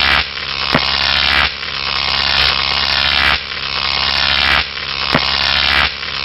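Electric-shock sound effect: a loud, harsh electrical buzzing and crackling that surges in repeated waves about every one and a half seconds.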